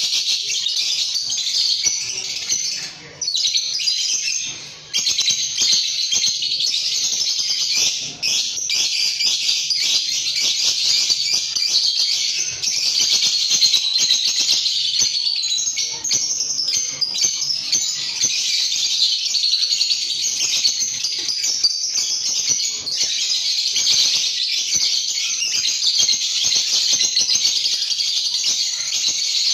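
Caged lovebirds chattering continuously in dense, shrill chirps and squeaks, with a couple of brief lulls in the first few seconds.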